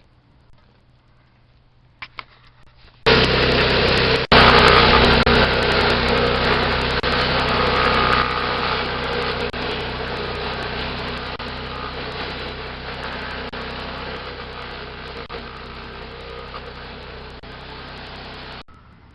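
Homemade stump grinder running, its cutter grinding into a stump. The machine noise starts suddenly about three seconds in, is loudest early, gradually gets quieter, then cuts off sharply near the end.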